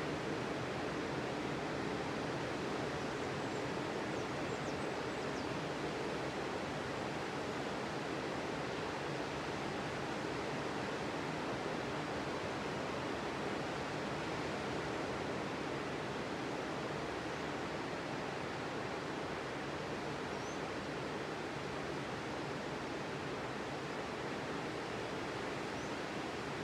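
Ocean surf breaking on a sandy beach, heard as a steady, even wash of surf noise with no distinct single wave crashes standing out.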